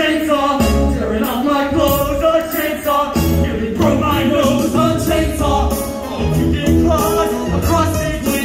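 Musical-theatre song: singing over a band with a steady, pulsing beat.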